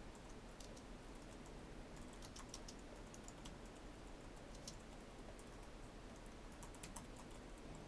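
Faint typing on a computer keyboard: a run of quick, irregular key clicks.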